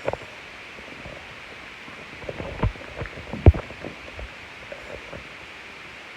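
A handful of short, low thumps over a steady faint hiss, the loudest about three and a half seconds in.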